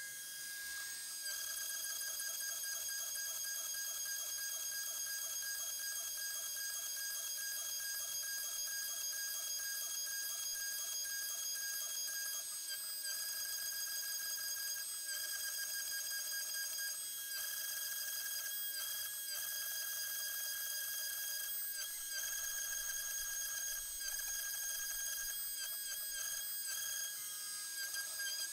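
Shapeoko 3XL CNC router carving into maple. The router spindle gives a steady high-pitched whine, with a fast fluttering cutting sound over it.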